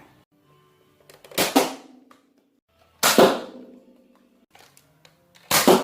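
Spring-powered Nerf foam-dart blaster clacking sharply three times, about a second and a half apart, as it is primed and fired.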